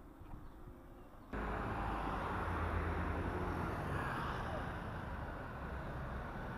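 Motorbike riding through town traffic, heard from a camera on the bike: a steady low engine hum under road and wind noise, coming in abruptly about a second in after a quieter stretch.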